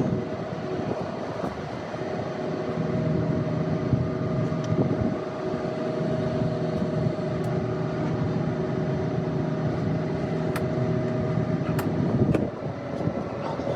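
A machine running with a steady hum, the pitch holding level throughout, over a noisy background with a few sharp clicks.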